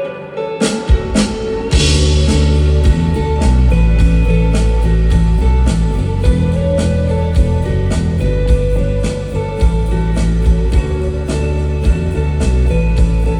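Live rock band playing: guitar notes at first, then drums and bass crash in under a second in, with cymbal hits, and the full band carries on with a steady beat.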